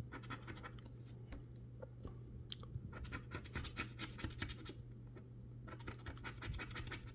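Quick scraping strokes scratching the coating off an instant lottery scratch ticket, coming in several short flurries.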